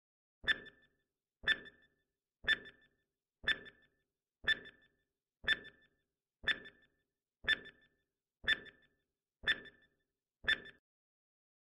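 Countdown timer sound effect ticking once a second, eleven short ticks, each with a brief pitched ring.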